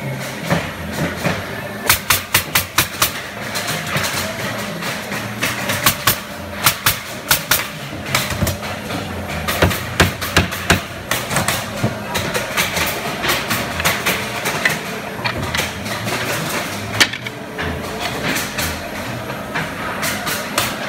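Wooden crate slats being nailed together: sharp knocks in quick clusters of several hits at a time, over a steady background din.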